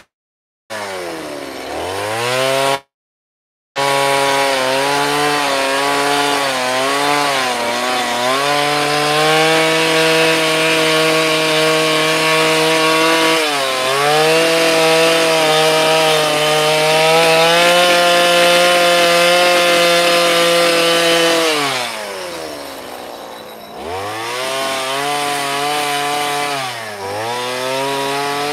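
Two-stroke carving chainsaw revving and cutting into a wooden sculpture, its pitch repeatedly climbing and dipping as the chain bites and frees. About three-quarters of the way through it drops in pitch for a couple of seconds, then revs up again. The sound cuts out completely twice in the first few seconds.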